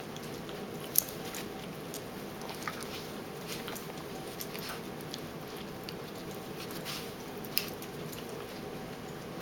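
Small terriers play-fighting on a bed: soft scuffling of paws in the bedding with jaw snaps and mouthing. Two sharper clicks stand out, about a second in and again near the end.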